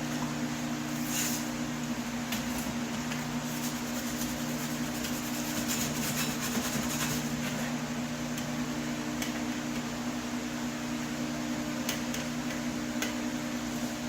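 Steady low hum throughout, with scattered light clicks and taps of a tool working softened paint loose on a metal vent register.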